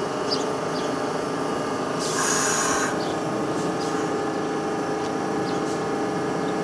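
Bombardier R62A subway train standing in the station with its doors open: a steady hum from its idling equipment, with a short burst of hiss about two seconds in.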